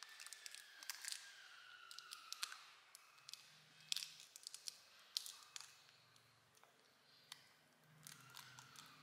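Faint crinkling and small sharp clicks of a wrapped hard candy being handled, its clear plastic wrapper crackling irregularly.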